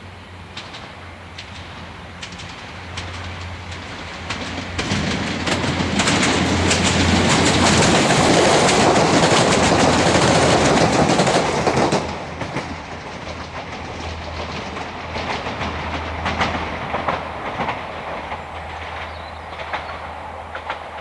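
Stadler FLIRT passenger train approaching and passing close by: its running noise swells over the first few seconds and stays loudest for about six seconds as the cars go past. It drops sharply about twelve seconds in, then wheel clicks over rail joints trail off as it moves away.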